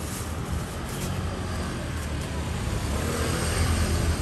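Street traffic: a motor vehicle's low engine rumble that grows gradually louder.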